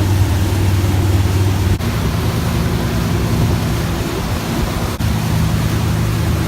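Motorboat engine running steadily under a loud rush of wind and water spray. The engine note shifts slightly about two seconds in.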